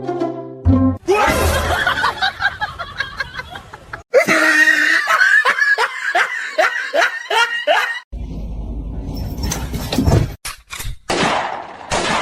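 Laughter in quick repeated bursts, with sharp knocks and clatter near the end.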